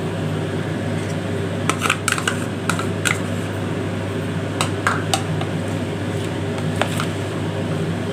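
Light clicks and taps of a plastic cup and spoon against a plastic bowl while thick curd is scraped out and spooned in, scattered in clusters around two to three seconds in and again near five and seven seconds, over a steady low hum.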